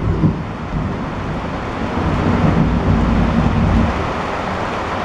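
Thunder rumbling over a steady hiss of rain, the deep rumble swelling about two seconds in and easing off near the end.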